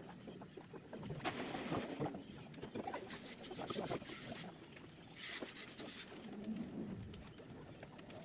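Scattered clicks, taps and rustles of hands and tools working on the wiring of a fire alarm control panel, the sharpest clicks a little over a second in and around four seconds in.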